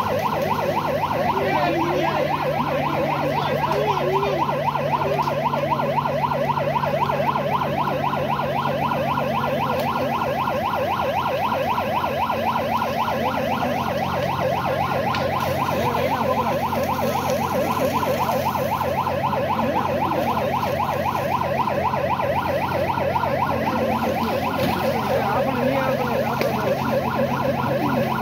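Emergency vehicle siren sounding continuously with a fast, even warble, over a steady low engine hum.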